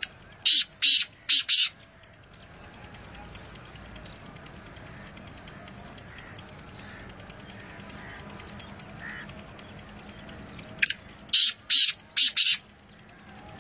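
Black francolin calling twice: each call is a short first note followed by three longer, rasping notes, the second call coming about eleven seconds after the first.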